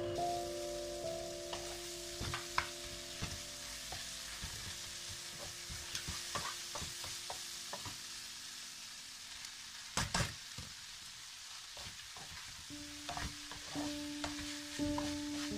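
Food sizzling in a nonstick frying pan while a wooden spatula stirs and scrapes through it, with short knocks of the spatula on the pan and one louder knock about ten seconds in. Faint background music plays at the start and again near the end.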